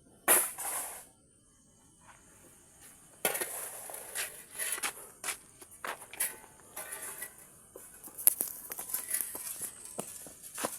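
Rustling and crackling, like footsteps through dry vegetation: one short loud rustle near the start, then, after a quiet spell, steady rustling with many small crackles and clicks from about three seconds in.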